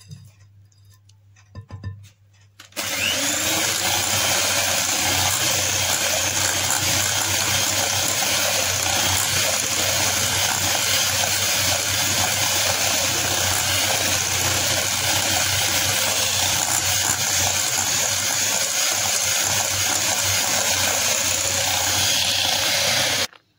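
Electric hand mixer switched on about three seconds in, running steadily at one speed as its twin beaters cream butter, icing sugar and egg into a cookie dough base in a glass bowl, then cut off just before the end. Before it starts, a few light taps and scrapes of a spatula in the bowl.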